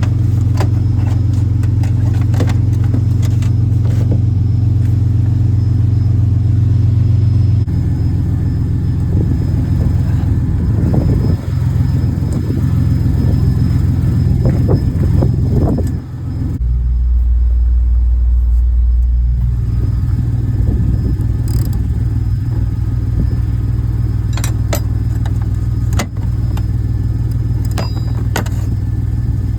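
A motor vehicle's engine running, a loud low drone whose pitch shifts a few times, with light clicks and jingles over it.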